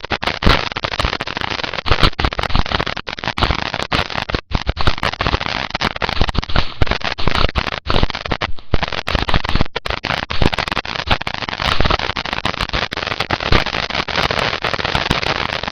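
A firework fountain burning with a continuous, dense crackle of sharp snaps.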